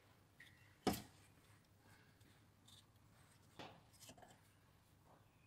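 Two short knocks about two and a half seconds apart, the first louder, with a few faint ticks after the second, from a reel lawn mower's wheel and axle parts being handled and set down. Otherwise near silence.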